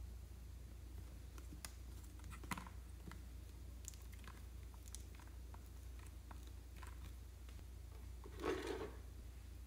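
Plastic pump dispenser on a lotion bottle being pressed, giving scattered light clicks and small squirting crackles as white lotion is pumped onto slime, with one louder, fuller knock near the end.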